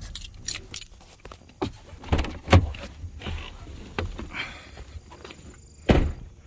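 Clunks, knocks and rustling as a person climbs out of a car: the door opening and shutting, with the loudest knock about two and a half seconds in and a heavy thump near the end.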